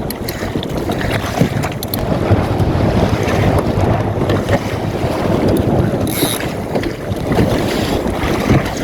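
Strong wind buffeting the microphone over water rushing along the hull of a small open sailboat under way. There is a brief hiss about six seconds in.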